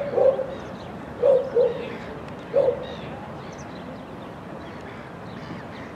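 A dog barking: about five short, loud barks in pairs over the first three seconds, then stopping. Faint bird chirps go on in the background.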